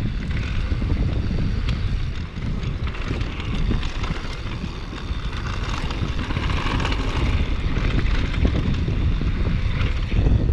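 Wind rushing over the microphone during a fast downhill mountain-bike descent, with the bike rattling and knocking over rough dirt trail and the tyres rumbling underneath.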